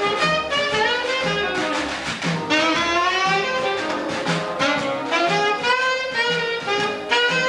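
Saxophone soloing on a bluesy jazz tune, with sliding notes about midway, over a bassoon ensemble keeping a steady pulse about twice a second.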